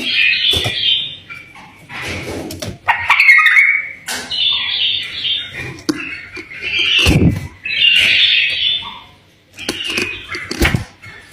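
Pet bulbul singing in a series of short, loud warbling phrases with brief pauses between them, with scattered sharp clicks in between.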